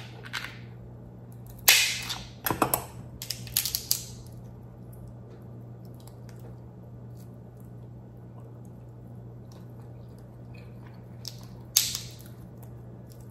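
Dungeness crab leg shell cracking and crunching as it is broken open with a metal crab cracker: a sharp crack about two seconds in, a burst of crunching cracks over the next two seconds, then one more sharp crack near the end.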